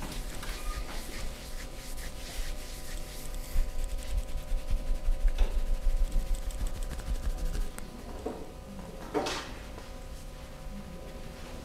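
Hands rubbing and pressing during a massage: a low, uneven rumble of rubbing strokes that eases off about eight seconds in. There is a single click about five seconds in and a short, sharper sound about nine seconds in.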